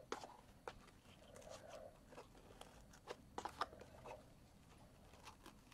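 Faint handling sounds: soft rustling and a few light ticks of ribbon and card stock as a ribbon bow on a paper gift box is fluffed by hand, with a small cluster of ticks around three to four seconds in.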